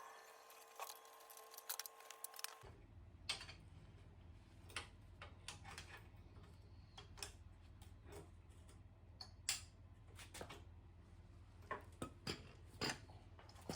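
Scattered light clicks and small metallic clinks of motorcycle parts and tools being handled on a workbench, over a low steady hum. Faint background music cuts off about two and a half seconds in.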